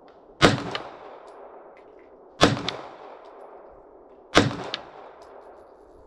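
Three pistol shots about two seconds apart, each trailing off in a long echo: slow aimed fire while zeroing a red dot sight.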